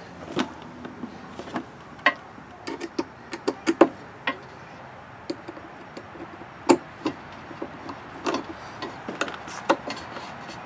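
Irregular light clicks and knocks as hands shift a plastic fuel tank on a wooden mounting platform, with a screwdriver worked at a screw in the wooden hold-down block near the end.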